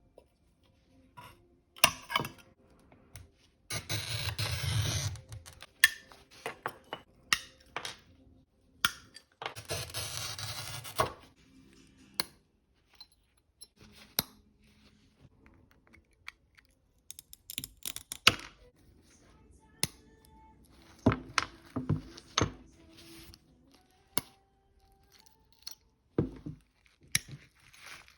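A glass cutter's wheel scoring sheet glass in two long scratchy strokes, around 4 and 10 seconds in, each about a second and a half long. Between and after them come many sharp clicks and knocks as the scored glass is snapped apart and handled.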